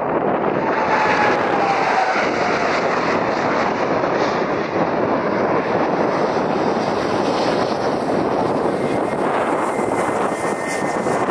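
Boeing 747-8F freighter's four GEnx jet engines at takeoff thrust as it lifts off and climbs away: a loud, steady jet roar. A faint falling whine can be heard in the first few seconds.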